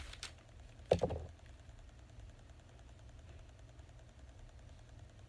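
A single dull knock about a second in, as of something set down or bumped on a tabletop, after a few faint clicks. Then quiet room tone.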